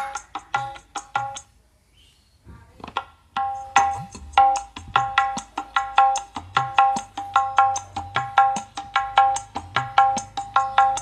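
Tabla-like percussive music played through a 6-inch midrange speaker, quick struck notes several a second, with a short break about two seconds in. The speaker is driven by a 400-watt amplifier through electrolytic capacitors wired in parallel, a test of whether the capacitors give it a thick midrange.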